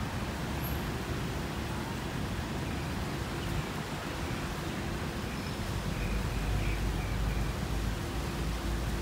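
Steady outdoor background noise, an even hiss over a low rumble, with a few faint short high chirps about six seconds in.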